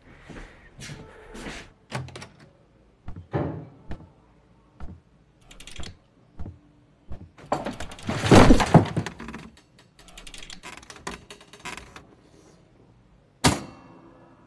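Thumps and clatters of someone struggling to move in metal leg braces, with a longer, louder crash about eight seconds in and a sharp knock near the end.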